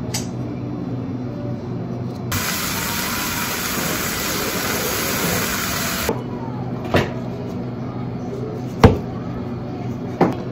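Duck meat sizzling in a frying pan over a portable gas stove: a steady hiss for about four seconds that starts and stops abruptly. Then a few sharp knocks, the loudest about nine seconds in.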